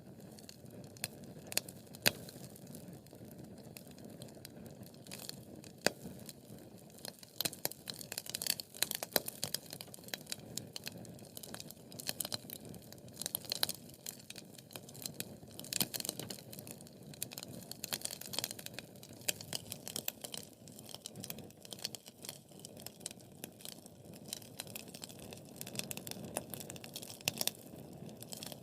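Wood fire burning with a steady low rush of flames and irregular sharp crackles and pops from the burning logs.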